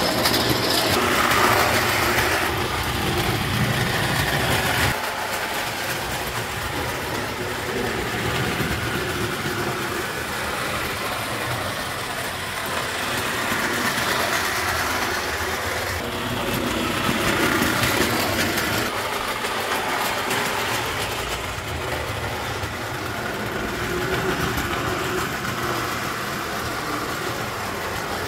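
Vintage Marx tin-plate Union Pacific articulated streamline locomotive set running steadily on its track, a continuous mechanical running noise of the toy train that swells and fades in loudness.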